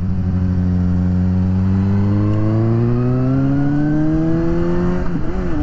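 Suzuki GSX-S750's inline-four engine under way, steady at first, then rising in pitch as the bike accelerates. Near the end the revs dip briefly and recover, a gear change, and it runs on at a slightly lower pitch.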